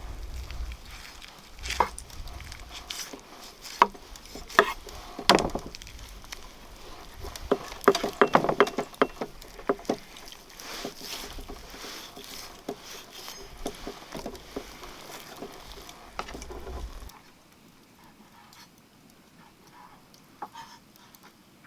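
Irregular sharp knocks and clicks, thickest about eight seconds in, over a low rumble. The rumble stops suddenly near the end, leaving only a few faint clicks.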